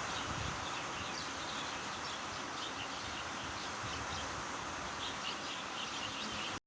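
Steady hiss of falling rain with small birds chirping repeatedly over it. Both cut off suddenly just before the end.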